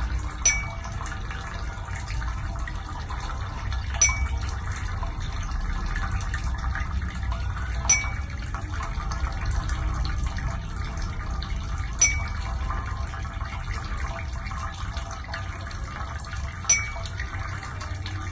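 Steady running, gurgling water noise, with a sharp drip-like plink about every four seconds.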